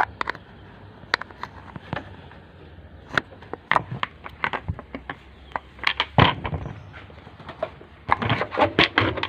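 Scattered clicks and knocks of a washing machine's plastic pulsator and parts being handled and fitted onto the drive shaft, coming thick and fast near the end.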